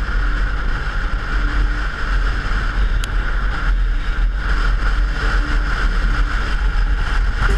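Motorcycle riding at road speed, heard from a camera mounted on the bike: a steady rush of wind on the microphone over the low drone of the engine.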